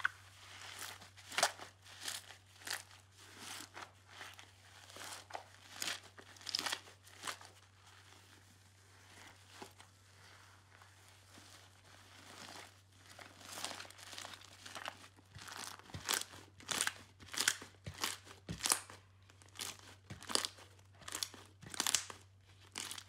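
Slime being stretched, pulled and squished by hand, giving irregular crackly squelches and pops, several a second at times, with a quieter stretch about a third of the way through. A faint steady low hum runs underneath.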